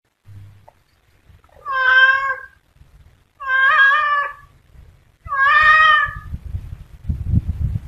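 Cat meowing three times, each meow about a second long, followed by a low rumble near the end.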